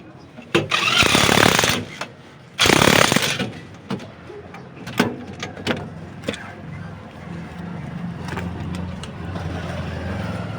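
Two loud bursts of a harsh, noisy mechanical sound, about a second each, in the first few seconds, then scattered clicks and knocks of repair work and a low steady hum.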